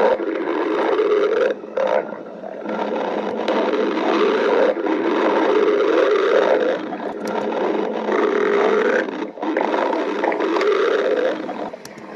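Stomach growling: a long run of loud, rough rumbling growls that eases briefly a few times before starting again.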